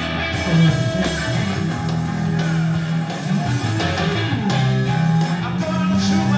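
Rock music with electric guitar and bass guitar, streamed from an iPhone over Bluetooth and played back loudly through a JBL EON ONE portable column PA speaker.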